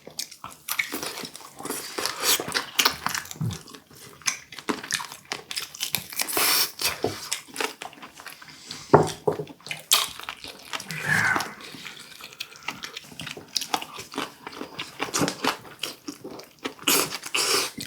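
Close-up, wet chewing and lip-smacking of boiled duck meat, with irregular small clicks and smacks.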